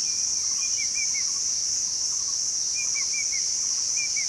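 Steady high-pitched insect drone, over which a bird gives three short phrases, each of two or three quick down-slurred notes.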